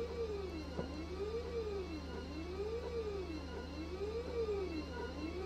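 FLSun S1 Pro delta 3D printer printing ABS. Its stepper motors whine in repeated rising-and-falling sweeps, each about a second and a half long, over a steady fan hum, with a single click a little under a second in.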